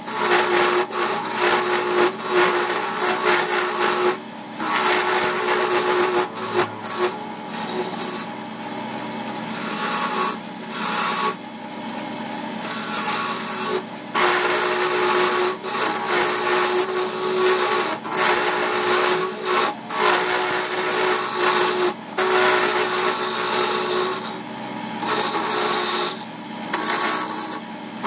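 Wood lathe spinning a cherry-wood dagger handle blank while a hand-held turning tool cuts into it: a steady motor hum under a scraping, shaving sound of the tool on the wood. The cutting comes in passes, broken by several short breaks where the tool comes off the work.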